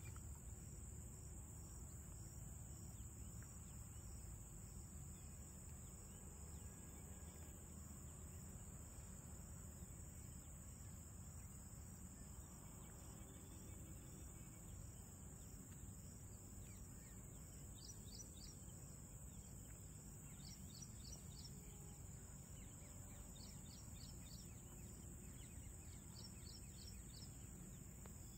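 Faint rural pondside ambience: a steady low background hiss with a continuous high insect drone, and from a little past halfway, short clusters of rapid high chirps.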